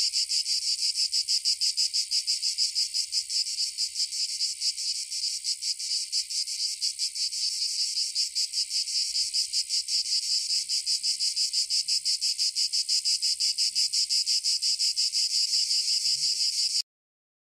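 Loud chorus of insects, a high shrill trill with a rapid, even pulsing of several beats a second, cutting off suddenly near the end.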